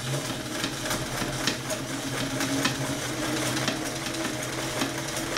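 Freshly overhauled vintage Sears Kenmore heavy-duty sewing machine running steadily while it stitches through four layers of denim with a size 16 denim needle: a constant motor hum with a regular clicking of the needle mechanism.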